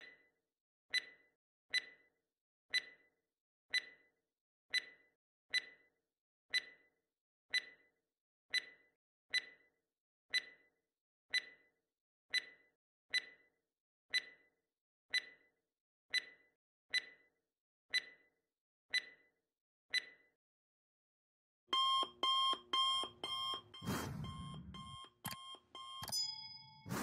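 Countdown-timer sound effect: a clock ticking about once a second for some twenty seconds, then an alarm-clock bell ringing for the last five seconds, signalling that time is up.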